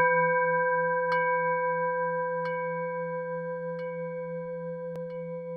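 A struck, bell-like ringing tone that fades slowly, with a low wavering hum under its higher overtones. It is lightly struck again about every second and a half, each strike fainter than the last.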